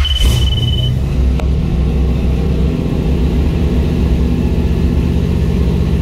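1964 Chevrolet Impala engine idling steadily with a loud low rumble, just fired up on a newly installed push-button start. A short high beep sounds in the first second.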